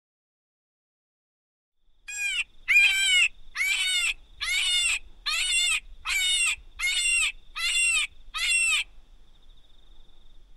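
Predator call used to lure foxes: a run of nine loud, squealing distress cries, evenly spaced about two-thirds of a second apart. They start a couple of seconds in and stop about a second and a half before the end.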